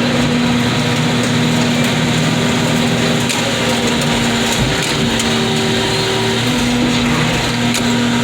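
Car crusher's engine and hydraulic pump running steadily with a constant hum.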